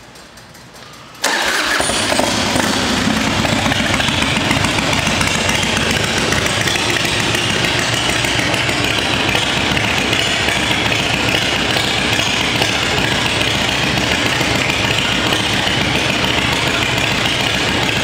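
A Harley-Davidson Dyna's V-twin engine starts about a second in and settles into a steady, loud idle through its chrome exhaust.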